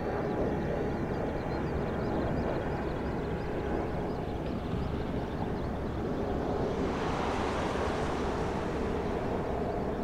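Airbus A330-300 airliner passing overhead in a banking turn on approach, its twin jet engines a steady noise. The sound swells and turns hissier between about seven and nine seconds in.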